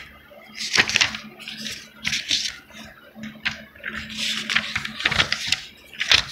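Paper pages of a book rustling and swishing as they are turned and handled, in about five brief bursts.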